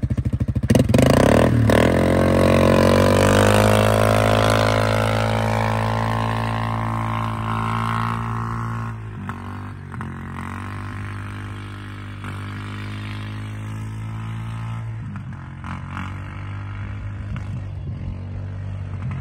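Yamaha Grizzly 700's single-cylinder engine revving, its pitch climbing over the first several seconds. About nine seconds in it drops back and keeps running at lower revs.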